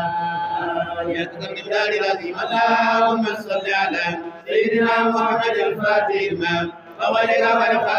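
Men's voices chanting Islamic dhikr together in unison, in repeated phrases broken by short pauses for breath.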